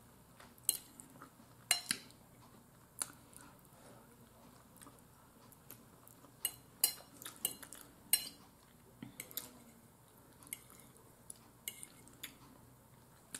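Metal fork clicking and scraping against a plate in scattered, irregular taps as food is picked up, with quiet chewing in between.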